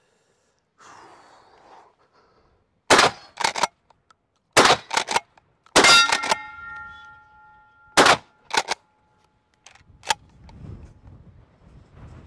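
Rock Island All Gen 12 pump-action 12-gauge shotgun firing 1 1/8 oz Foster slugs: four shots, about three, four and a half, six and eight seconds in, most followed shortly by the clack of the pump being cycled. A ringing tone hangs on for a couple of seconds after the third shot.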